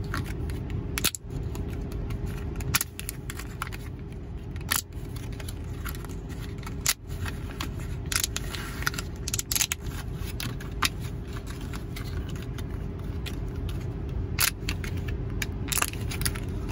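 Fingers pressing the bubbles of a thin clear plastic blister tray used as a DIY pop-it fidget, giving irregular crinkly clicks and pops. The bubbles are already crumpled, so the pops are getting quieter. A steady low hum runs underneath.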